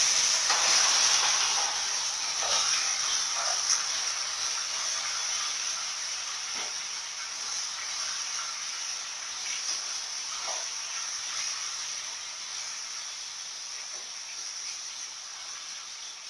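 Chicken thighs sizzling as they are tipped into a pot of sugar melted in hot olive oil. The sizzle starts suddenly and loud, then slowly dies down, with a few light knocks of the stirring utensil against the pot.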